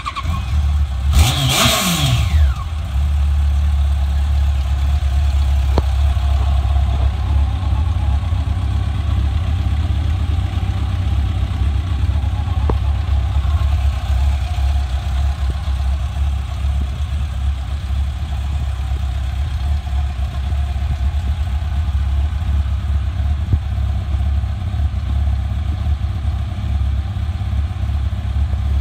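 2008 Yamaha FJR1300's inline four-cylinder engine starting up: the revs flare and fall away within about two seconds, then it idles steadily.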